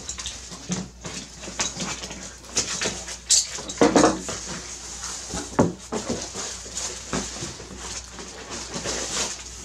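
Cardboard shipping box being opened by hand: flaps pulled back and bent, with irregular rustling, scraping and knocks of the cardboard.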